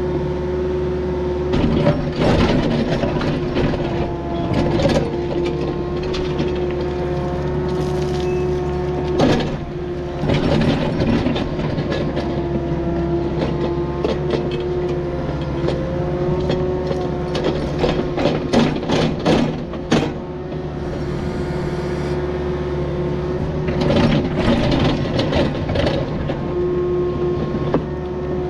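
Diesel engine of a Takeuchi earthmoving machine running steadily with a held hydraulic whine, while bursts of clanks and scrapes from the bucket and tracks working rock and dirt come and go.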